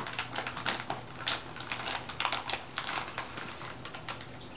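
A dog chewing a crunchy dog cookie: quick, irregular crunches that thin out near the end.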